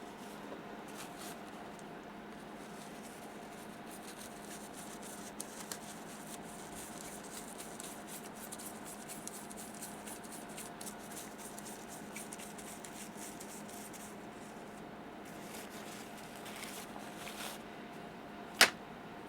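Faint scratching and small clicks of hand work on a small circuit board, over a steady low hum; one sharp click sounds near the end.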